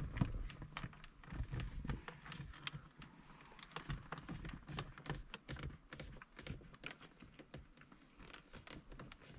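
Faint, irregular clicks and taps of hands working on the plastic interior trim of a car while pressing a thin glowstrip into the gaps.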